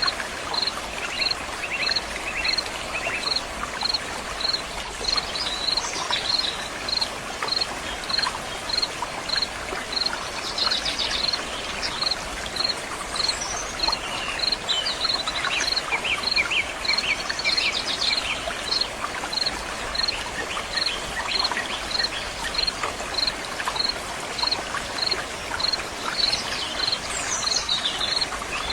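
A stream of running water makes a steady rush, with birds calling now and then over it. A short high chirp repeats evenly, a little under twice a second.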